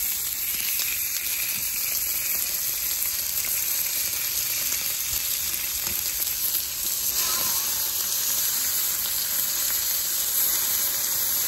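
A5 Wagyu steak sizzling steadily on a charcoal grill grate, its fat rendering and dripping onto the hot lump charcoal.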